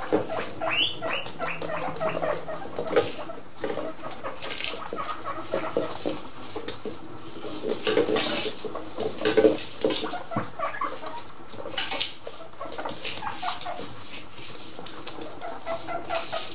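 Guinea pigs making many short squeaking calls, heaviest about halfway through, mixed with scattered clicks and scrapes of a plastic treat ball being nosed along the floor.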